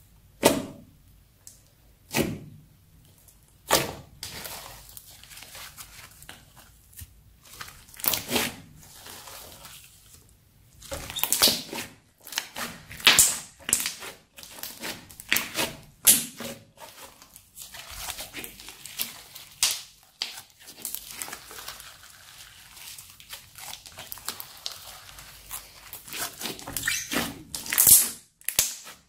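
Thick crunchy slime being pressed, squeezed and folded by hand, giving sharp sticky pops and crackles as trapped air bursts. A few single pops come at first, then denser runs of crackling and squishing from about a third of the way in.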